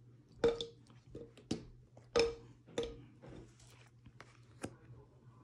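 Handling noises: about eight sharp clicks and light knocks at uneven intervals, some with a brief ring, over a low steady hum.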